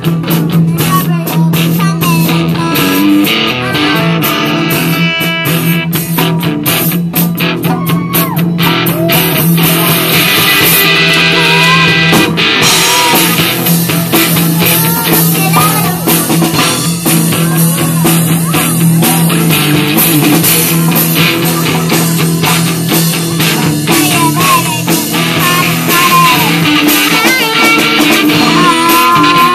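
Rock band playing live: electric guitar with bass and drum kit.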